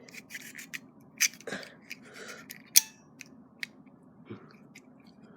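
Metal clicks and scrapes of a Schrade single-action OTF switchblade being worked by hand: the blade is pulled back and the slider pushed, with one sharp snap a little under three seconds in.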